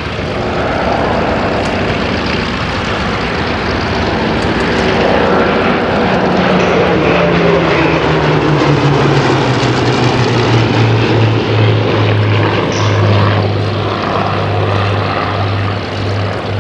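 A pair of Hawker Hurricane Mk I fighters passing with their Rolls-Royce Merlin V12 engines running. The sound grows louder, and about six seconds in the engine note falls in pitch as they go by, then settles into a steady low drone.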